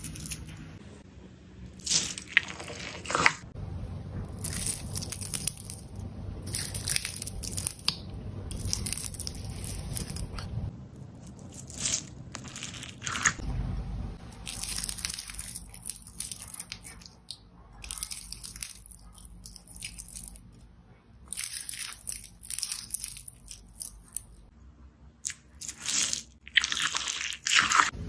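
Jelly slime being squeezed and pressed by hand, giving off irregular crackling and popping clicks with a few louder crunchy snaps.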